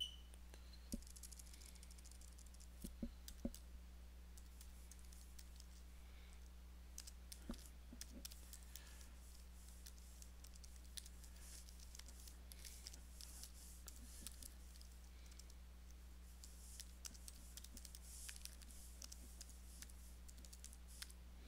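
Faint typing on a computer keyboard: a long, irregular run of quiet key clicks, with a few sharper, louder strokes in the first few seconds. A steady low hum runs underneath.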